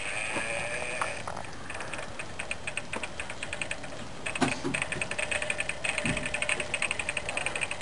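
Fishing reel's ratchet clicking rapidly and evenly, starting a little past halfway through.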